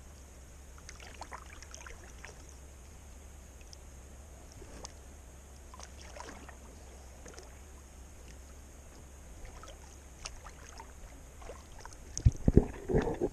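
Kayak paddle strokes dipping into calm river water, with soft drips and small splashes now and then. Near the end come a few loud thumps.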